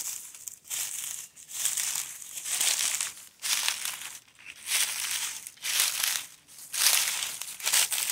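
Footsteps crunching through dry leaf litter on a hardwood-forest trail, about one step a second.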